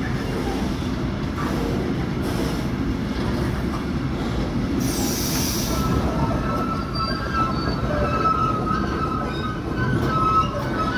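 Freight train rolling into a station with a steady low rumble of wagons on the rails; about halfway through comes a short hiss, then wheel squeal sets in, a wavering high-pitched screech that carries on to the end.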